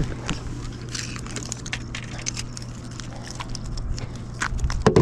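Handling noise: irregular clicks and knocks as a freshly caught fish is handled on the line and clamped in a fish lip gripper, over a steady low hum. A louder knock comes near the end.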